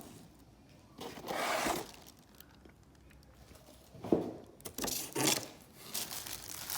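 Handling noises as the cleaner's parts and packaging are moved about: scraping and rubbing in a few short bursts, one about a second in and several more in the second half.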